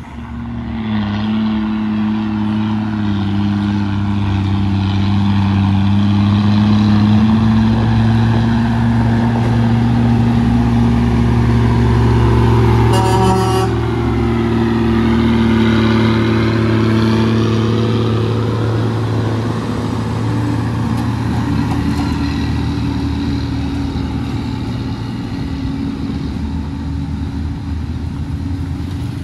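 Heavy diesel truck engine running loud and close, its pitch drifting up and down as it works.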